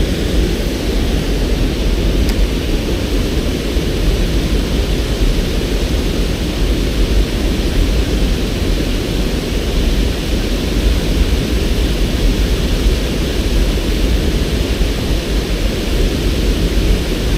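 White water rushing steadily below a dam, an even, unbroken noise heaviest in the low end.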